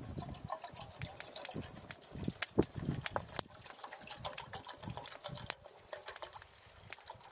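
Raindrops tapping irregularly and closely in a heavy downpour, many quick sharp ticks over a faint rain hiss.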